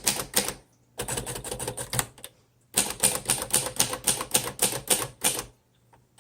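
A 1951 Royal Quiet De Luxe manual typewriter being typed on: quick runs of sharp keystroke clacks, several a second, broken by short pauses, trailing off near the end.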